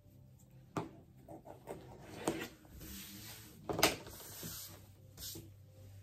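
Fabric rustling and a few light knocks from handling things on a cutting table, the loudest knock about four seconds in.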